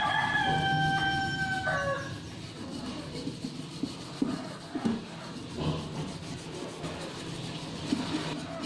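A steel wool scrubber scouring a stainless steel pot, a rough irregular rubbing. Over the first two seconds a single long pitched call, rising at the start and dropping at the end, is the loudest sound.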